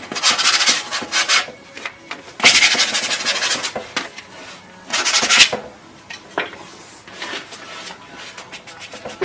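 Oil paint being scraped and rubbed across a stretched canvas with a painting tool: three long loud scraping strokes in the first half, then fainter, shorter ones.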